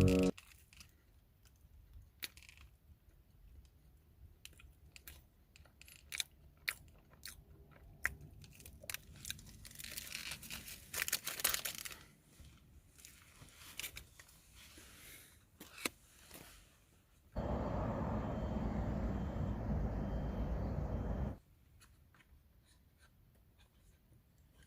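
Close handling of a snack wrapper: scattered clicks, crinkling and tearing as the packet is opened. Near the end comes about four seconds of steady rushing noise that cuts in and out abruptly.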